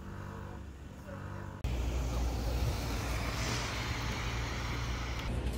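Steady low rumble and noise, like a vehicle in motion. It cuts abruptly to a louder, noisier rumble about one and a half seconds in.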